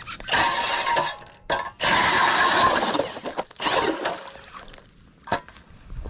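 Ice auger boring through thin, clear lake ice in three bursts of grinding and crunching, with loose ice chips clinking. A few sharp clicks follow near the end.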